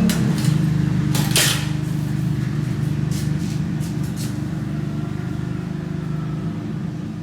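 A steady low engine rumble, like a motor vehicle running nearby, with short hissing noises about a second in and again around three to four seconds in.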